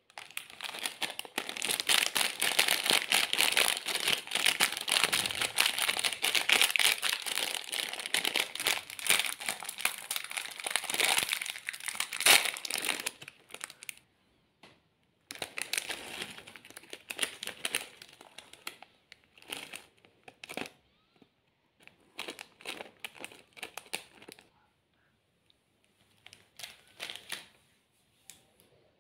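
Foil-lined plastic wrapper of a mini Oreo pack crinkling as it is handled and opened. The crinkling is dense and loud for the first dozen or so seconds, then breaks into shorter bouts of crinkles with pauses between them.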